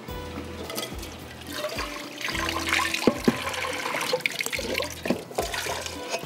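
Pot of boiled rice being drained: the cooking water pours out and splashes, loudest from about two seconds in, with a couple of sharp clinks near the middle.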